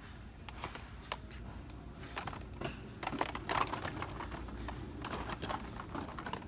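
Cardboard-boxed die-cast toy cars being handled on metal store peg hooks: a run of irregular light clicks and knocks that gets busier about two seconds in.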